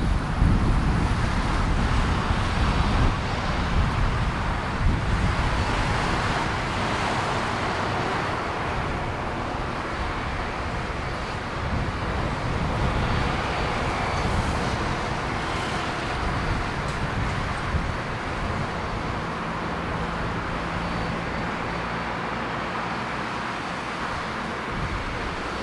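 Boeing 767 freighter's jet engines at taxi power: a steady rushing hum with a faint high whine. A deeper low rumble fades over the first few seconds.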